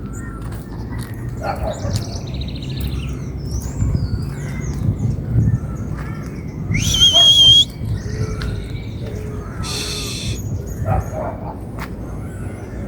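Wild birds chirping and calling in woodland, with one loud, clear whistled call about seven seconds in that rises and then holds steady for nearly a second, and a harsh buzzy call a few seconds later.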